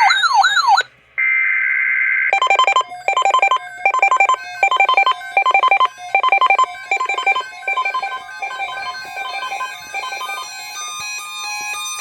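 Emergency Alert System tones. A short burst of steady screeching digital header data, with a warbling tone over its first part, stops about two seconds in. It is followed by a pulsing electronic alert tone, short chords about twice a second, that turns into a run of steadier changing beeps near the end.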